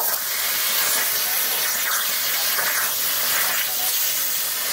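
CNC plasma torch cutting steel plate, a steady hiss from the arc and its air jet.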